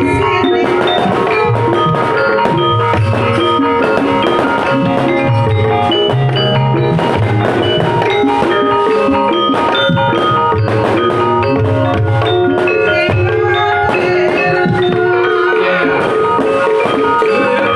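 Javanese gamelan ensemble playing an instrumental blenderan piece in the north-coast Pantura style: bronze metallophones ring out held, overlapping notes while a kendang barrel drum is struck by hand and deep drum beats keep the pulse.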